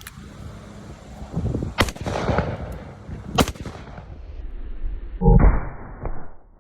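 Smith & Wesson Performance Center .500 S&W Magnum revolver with a 3-inch barrel firing: sharp shots about two seconds and three and a half seconds in, then a louder, duller blast a little after five seconds.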